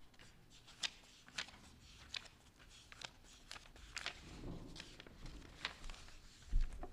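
Quiet footsteps and small handling taps as a person moves away from an altar and walks across the front of the church. They come as irregular light clicks about every half second, with a dull thump near the end.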